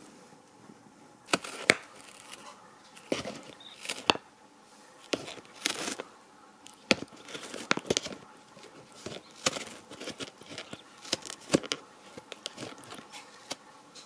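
A cat biting and tearing at the edge of a cardboard box with its teeth: irregular sharp crunches and small tearing sounds, starting about a second in.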